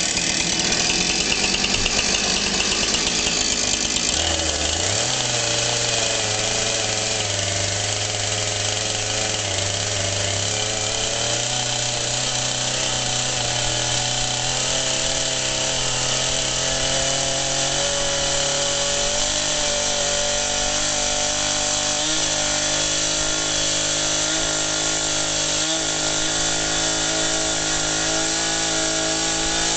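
Chainsaw running while cutting into a straw bale. Its engine note steps up in pitch about four or five seconds in, then holds mostly steady.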